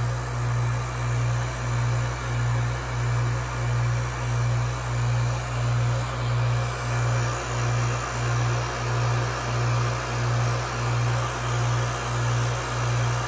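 Arksen 5 CFM two-stage rotary vane vacuum pump running steadily: a low hum that swells and fades in an even pulse a little more than once a second.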